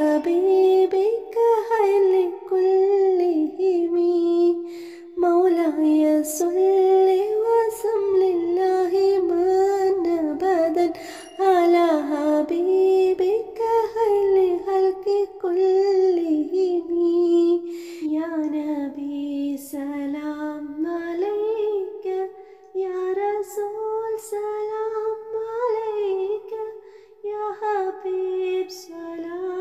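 A high solo voice, a child's or a woman's, singing an Islamic devotional song (nasheed) in Arabic: a single melodic line of long held, ornamented notes.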